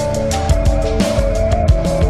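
Background music with a steady beat of drum hits and held synth notes.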